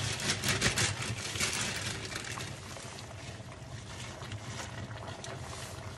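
Fresh spinach leaves and their plastic bag rustling and crackling as the leaves are tipped and pressed into a pot, over the steady bubbling of simmering soup. The rustling thins out after about two seconds, leaving the simmer.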